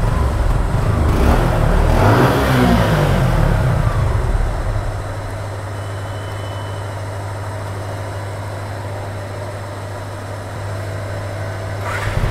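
Suzuki Gixxer's single-cylinder engine running with the choke pulled: it is revved once in the first few seconds, its pitch falling back, and then settles to a steady idle. Without the choke it won't start, and opening the throttle nearly kills it: it is not making power, which the owner puts down to fuel not reaching the carburettor properly.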